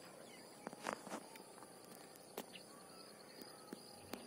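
Near-quiet open-air ambience with a few faint, scattered clicks.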